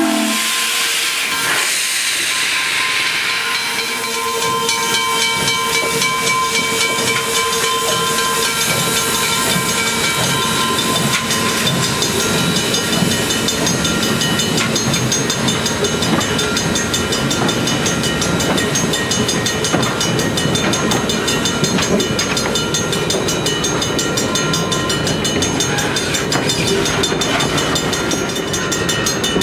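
Steam locomotive Wilmington & Western No. 58, an 0-6-0, starting a passenger train: a whistle blast cuts off at the very start, then steam hisses from the open cylinder cocks. This gives way to steady, regular exhaust beats and the rumble and clicking of the coaches rolling past.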